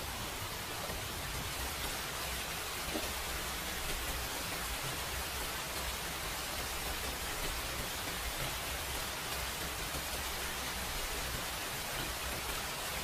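Steady, even hiss with one faint click about three seconds in.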